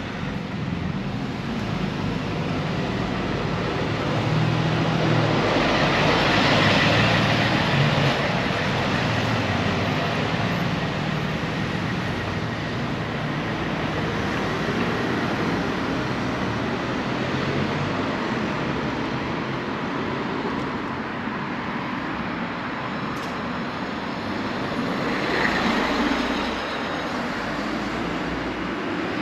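Town street traffic: a steady hum of cars on the road, with a car passing and swelling louder about six seconds in and another near the end.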